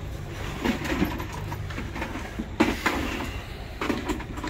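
A tent camp being dismantled: scattered knocks and clacks over a steady low rumble.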